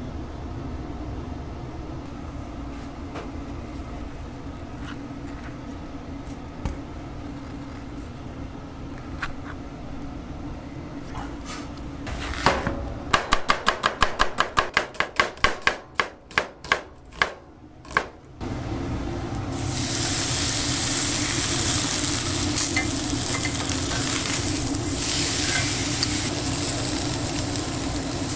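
Cleaver slicing onion on a wooden cutting board: a quick, even run of knife strokes, about four a second, lasting some five seconds. Then comes a steady, loud sizzle as a tuna block sears on a hot ridged cast iron grill pan. Before the chopping there is only low kitchen background with a few light clicks.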